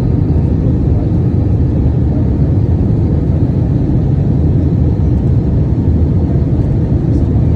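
Steady cabin noise of a jet airliner on approach with the flaps extended: an even, loud rumble of engines and rushing air, heavy in the low end.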